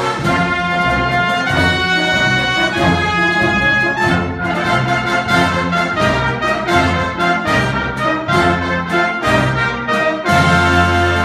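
Brass ensemble of trumpets, trombones and horns playing a triumphal march, with a full low chord taken up about ten seconds in.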